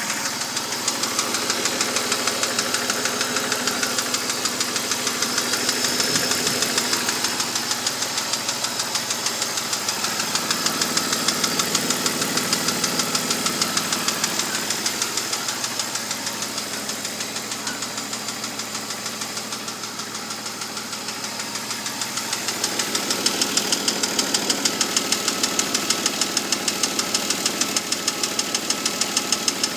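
BMW E39's M52TU straight-six engine running with a rapid, regular knocking from around the VANOS units, the knock quickening as the revs rise; the engine note swells and eases a few times. The owner is unsure whether it is the VANOS or worn bearing shells.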